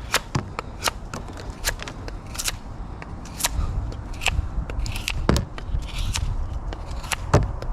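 Folding pocket knife slicing through rope: a run of irregular sharp snaps and crackles as the fibres part, with a low rumble in the middle stretch.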